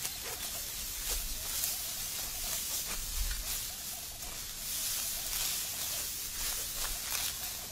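Dry wheat stalks rustling and crackling as they are cut and gathered by hand, in many irregular crisp strokes, over a low uneven rumble.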